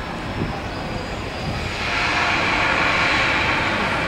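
Blackpool Standard double-deck heritage tram running along the street track, a steady mix of rumble and rail noise that grows louder about two seconds in as it draws near.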